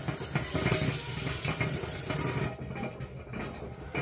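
Tap water running into a stainless steel pot in the sink. Its hiss cuts off about two and a half seconds in.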